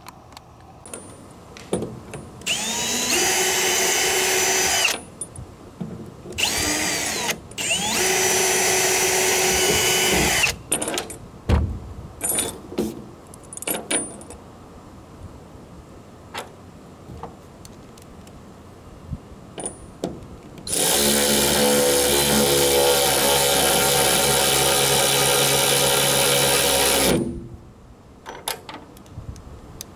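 Cordless power tool working into a wooden truck bed, run in three short bursts and then one longer run of about six seconds, its motor whining up in pitch as each burst starts. Clicks and knocks of handling come between the runs.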